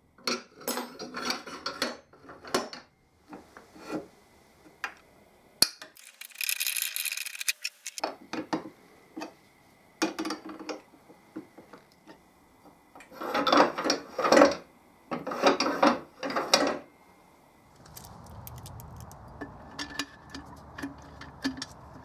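Steel parts of a furnace lid-lift linkage being fitted and worked by hand: a pushrod sliding and rubbing in a steel tube, with clicks, knocks and scrapes. There is a longer scrape about six seconds in and a louder spell of rattling about two-thirds of the way through. A steady low background noise comes in during the last few seconds.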